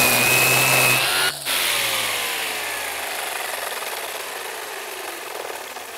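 Hyoja cordless (battery) brush cutter with nylon trimmer line running at speed with a high whine, then, after about a second and a half, released so the electric motor and line head wind down, their pitch falling steadily as they fade.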